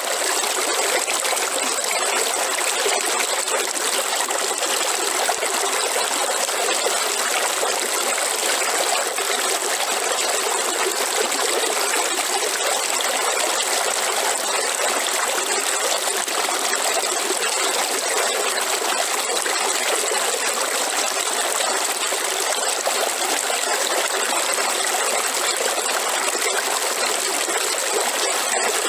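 River water flowing steadily: an even, unbroken rush with a thin steady high-pitched hiss over it.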